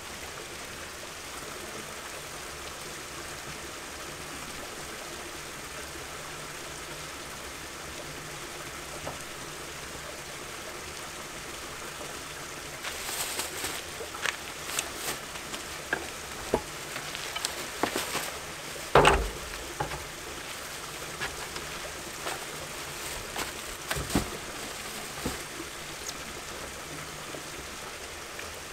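Steady hiss of rain. From about halfway come footsteps on gravel and the rustle of a plastic bag, then a loud knock and more knocks and clicks as a ladder is set against a truck's camper box and its door is opened.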